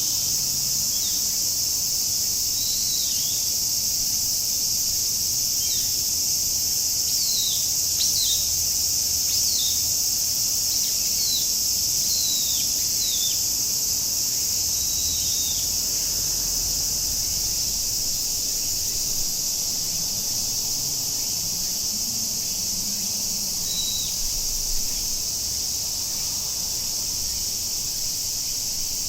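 A chorus of cicadas keeps up a steady, high-pitched drone. Over it a bird calls in short, falling chirps, many in the first half and once more near the end.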